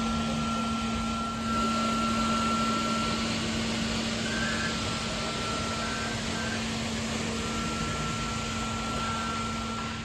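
Kärcher KIRA B 200 autonomous floor scrubber-dryer running: a steady motor and vacuum noise with a constant low hum and a thin high-pitched whine.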